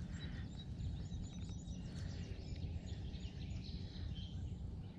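Birds chirping in the background, many short high calls scattered through, over a steady low rumble of outdoor ambience.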